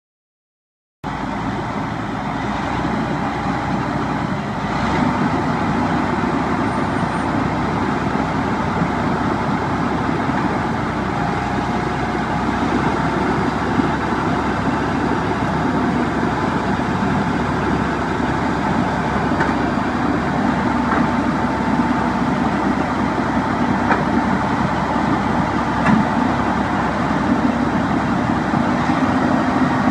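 Semi tractor's diesel engine running steadily, cutting in abruptly about a second in, while it powers the hydraulics of the truck-mounted forklift raising and lowering its boom and forks.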